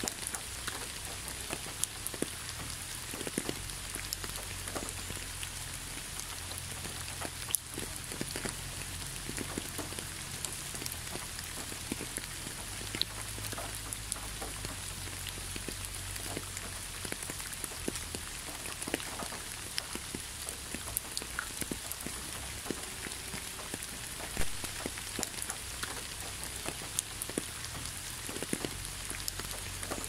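Steady rain: a constant hiss with many individual drops landing as scattered sharp ticks, over a low steady rumble.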